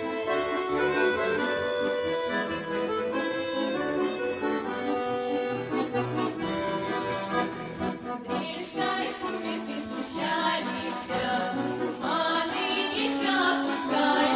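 Accordion playing a folk-style tune with long held chords; a little over halfway through, the music turns busier, with sharp beats coming in.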